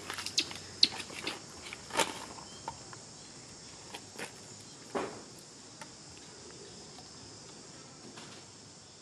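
Steady high-pitched insect chorus, with a few sharp clicks and crackles in the first five seconds.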